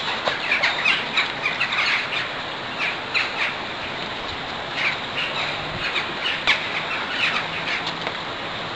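Small birds chirping, many short calls scattered over a steady outdoor background hiss.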